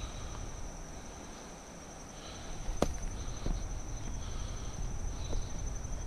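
Insects trilling steadily at a high pitch, with one sharp click about three seconds in and a few fainter knocks.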